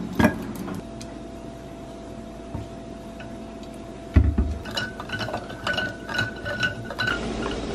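An ice cube clinks as it drops into a glass mason jar of coffee. About four seconds in comes a dull thump, then a run of quick, ringing clinks as ice knocks against the glass while the coffee is stirred with a plastic straw.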